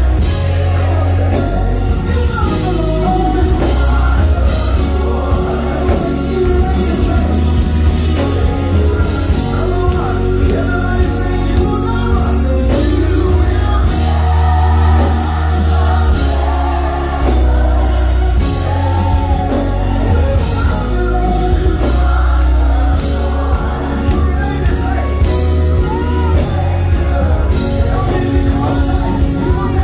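Live gospel worship music: a group of singers on microphones singing together over a band, with a heavy, sustained bass line and a steady drum beat.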